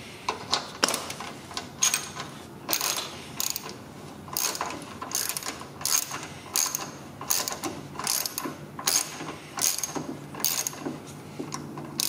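Small hand ratchet with a Torx T30 bit clicking in a run of short back-and-forth strokes, about one to two a second, as bolts on a car door are driven in and tightened.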